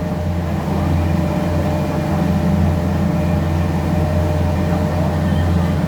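Ferry boat's engine running steadily under way: a constant low drone with a faint steady higher tone above it.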